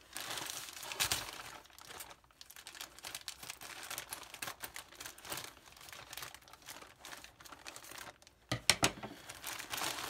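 Plastic mailer bag crinkling and tearing as it is cut open and handled, in irregular crackles, with a cluster of sharper, louder clicks about eight and a half seconds in.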